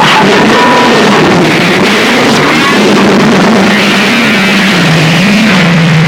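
Harsh noise music: a loud, dense wall of distorted noise over a low droning tone that wavers up and down in pitch, dipping lower about five seconds in.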